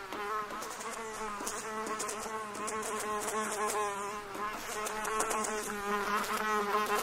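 Housefly buzzing in a steady drone whose pitch wavers slightly.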